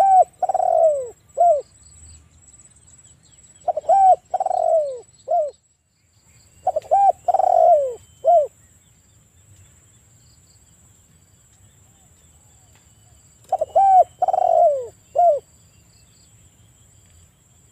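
Spotted dove cooing: four phrases a few seconds apart, each a couple of quick short notes, a longer falling coo and a short closing note.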